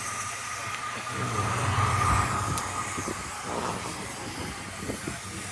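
Canadian Pacific 2816, a 4-6-4 Hudson steam locomotive, standing under steam with a steady hiss and a thin steady tone. It swells louder with a low rumble for a couple of seconds about a second in.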